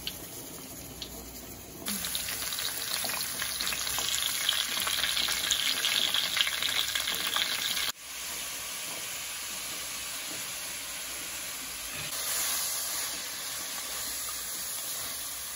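Raw cubes of stewing beef searing in hot oil in a wok, stirred with a wooden spatula. A faint sizzle jumps suddenly much louder about two seconds in. It drops abruptly about eight seconds in, then carries on as a steadier, quieter sizzle.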